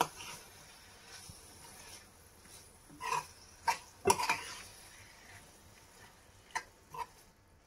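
A metal spoon stirring and scraping methi leaves and potatoes in a small non-stick pan, with several sharp clicks of the spoon against the pan, a cluster about three to four seconds in and two more near the end.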